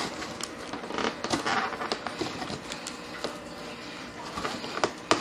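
A cardboard shipping box and its packaging being handled and pulled at: uneven rustling with scattered knocks and clicks, and one sharp click near the end.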